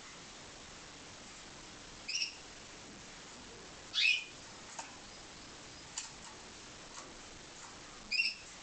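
Timbrado canary giving three short, high chirps a couple of seconds apart, with a few faint small clicks between them.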